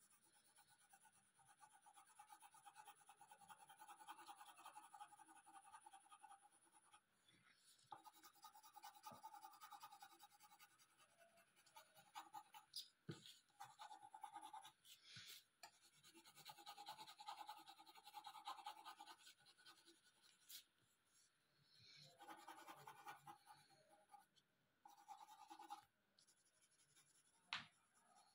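Pencil shading on paper: faint, scratchy back-and-forth strokes in runs of a few seconds with short pauses, and a few sharp ticks, the loudest near the end.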